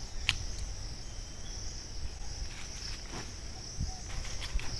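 Steady high-pitched chorus of insects shrilling, with a low rumble and a few light clicks.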